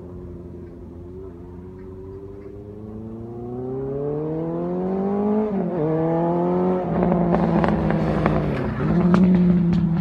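Honda CB550's air-cooled inline four through a Moto GP Werks exhaust, revving up through the gears: the pitch climbs steadily, drops sharply twice as it shifts, and dips once more near the end. It is loudest in the last few seconds, with sharp crackles from the exhaust.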